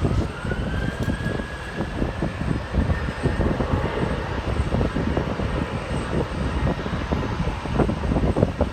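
Jet airliner engines with a whine that rises over the first few seconds and then holds steady, under heavy wind rumble on the microphone.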